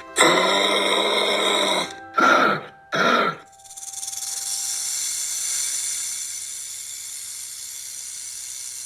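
An animal's loud call, one long call then two short ones. From about three and a half seconds in, a steady high hiss follows.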